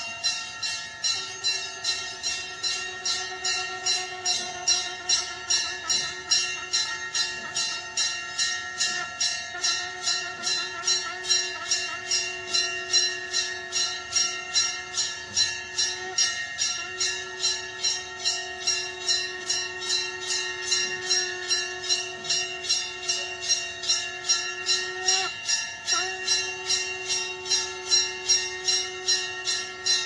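Temple bell rung continuously in quick, even strokes, while a conch shell (shankh) is blown in long held notes, with short breaks between breaths.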